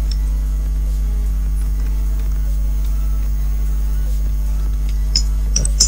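Steady electrical mains hum, with a few faint clicks near the end.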